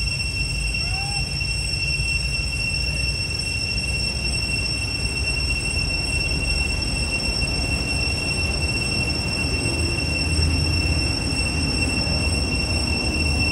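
Forest ambience: a steady low rumble, like wind on the microphone, under a constant high-pitched drone. A faint short chirp comes about a second in.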